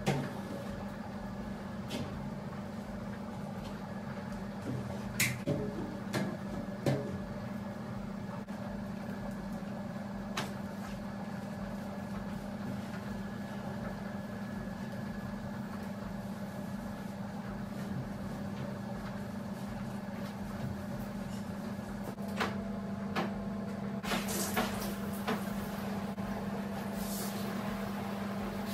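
A steady low hum under scattered knocks and clicks of hands and a cloth working on shower fittings and a glass shower screen. Near the end there are short bursts of spray from a hand shower over a bathtub.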